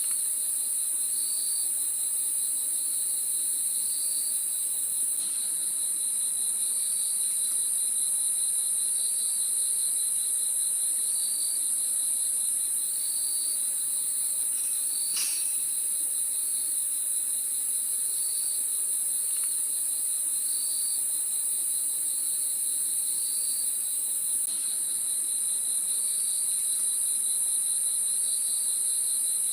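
Crickets chirping steadily. A continuous high-pitched insect trill runs underneath a lower, fast-pulsing chirp that repeats every second or two, with one faint tick about halfway through.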